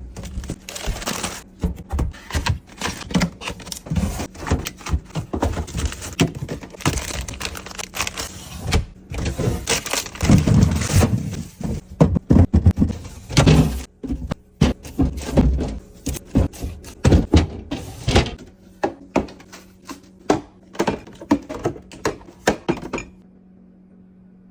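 Groceries and containers being set down and arranged on refrigerator shelves: an irregular run of knocks, taps and clatters of plastic and glass that cuts off suddenly near the end, leaving a faint steady hum.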